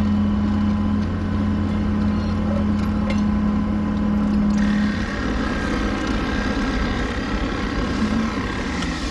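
John Deere tracked excavator's diesel engine running steadily under hydraulic work, with a steady low hum; its tone changes about five seconds in.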